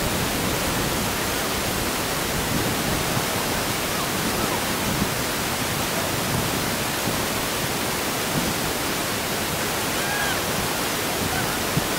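A steady, even hiss on an open-air recording, with faint distant voices calling out near the end.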